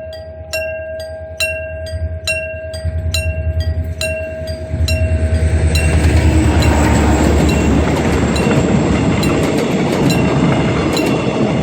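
Electrically operated mechanical level-crossing bell on a non-electrified line, striking steadily at about two and a half strokes a second. A few seconds in, a diesel train's low engine throb builds, and from about five seconds the loud rumble of the passing train drowns out the bell.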